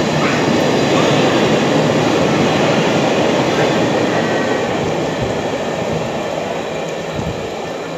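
Freight train of empty flat wagons hauled by a Class 66 diesel locomotive rolling past at low speed, with a steady rumble and clatter of wagon wheels on the rails that fades over the last few seconds as the tail of the train draws away.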